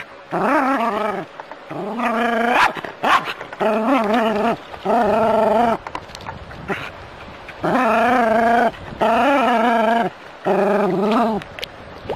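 Small terrier giving seven long, wavering growl-barks of about a second each, agitated as it squares up to a snake.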